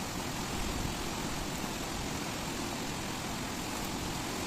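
Heavy rain pouring steadily onto pavement in a downpour, a dense unbroken hiss with a deep rumbling undertone.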